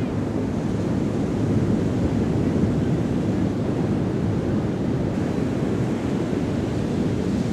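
Ocean waves washing onto a beach: a steady rush of surf that swells slightly a couple of seconds in.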